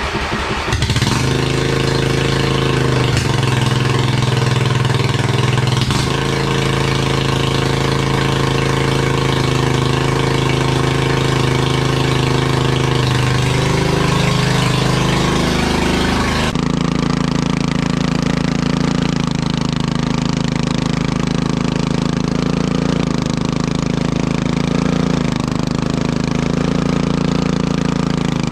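Riding lawnmower engine running loud through a straight pipe with the muffler removed, a steady engine drone. Its speed shifts a little past the middle, and the sound changes abruptly a few seconds later.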